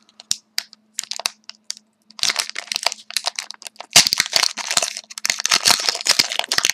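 A pack of hockey cards being opened by hand: a few sharp crackles, then from about two seconds in a dense run of crinkling and crushing as the wrapper is torn and crumpled, loudest about four seconds in.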